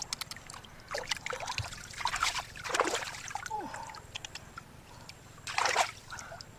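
Water splashing and trickling, with scattered clicks and knocks, loudest in a few bursts around the middle and near the end.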